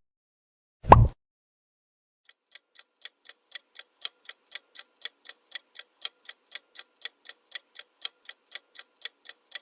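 A short plop sound effect about a second in, then a quiz countdown timer's clock ticking steadily, about four ticks a second.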